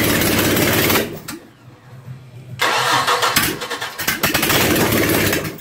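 GM inboard marine engine on a test stand being cranked to start, in two loud bursts: one that stops about a second in and a second from about 2.6 s to just before the end, with a quieter pause between.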